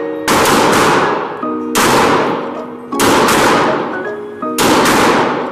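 Glock 23 .40-calibre pistol firing four single shots, a little over a second apart, each followed by a long echo off the indoor range walls. Background music with pitched notes plays underneath.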